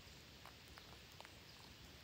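Parakeets pecking and nibbling at bare soil: a few faint, short ticks and taps over quiet forest background.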